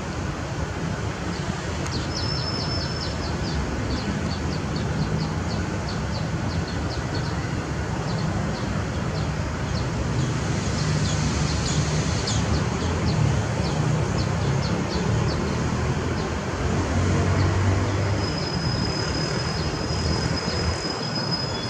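Diesel locomotive running as it draws a passenger train slowly into a station platform: a low engine rumble under a steady wash of noise. A run of light, rapid clicks comes in the first half, and a thin high whine near the end.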